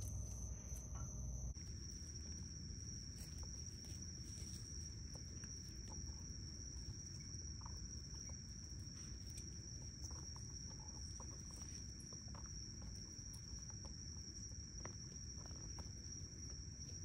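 A steady high-pitched chorus of night insects, its pitch stepping slightly lower about a second and a half in. Faint scattered clicks and rustles come from young raccoons climbing and hanging on a rubber tire swing.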